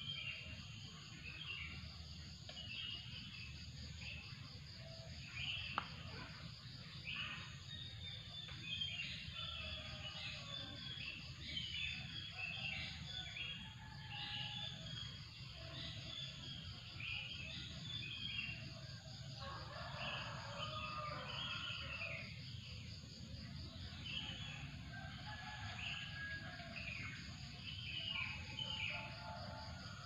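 Many birds chirping in a morning chorus over a steady high insect trill. A rooster crows once, about twenty seconds in, and there is a single sharp click about six seconds in.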